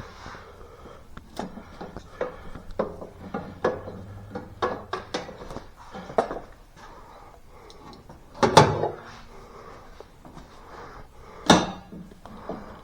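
Irregular clicks and knocks of tools and parts being handled on a workbench, with two louder clanks about eight and a half and eleven and a half seconds in.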